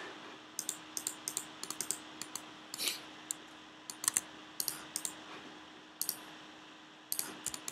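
Irregular clicks and taps of a computer keyboard and mouse, sometimes in quick runs, over a faint steady hum.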